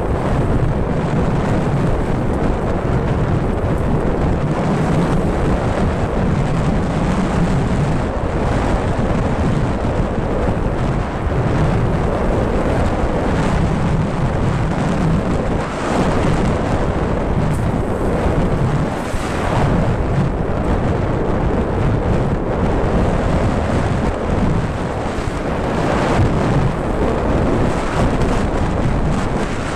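Wind buffeting the microphone of a camera moving fast down a dirt trail, mixed with the rumble and rattle of the ride over rough ground. It is a steady, loud noise with no engine note.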